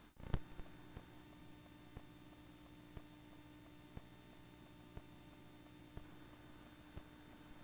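Faint steady electrical hum with a sharp click just after the start, then faint ticks about once a second.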